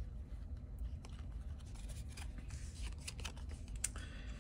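Trading cards being handled: faint, scattered clicks and light rubbing as cards are slid and flicked against each other.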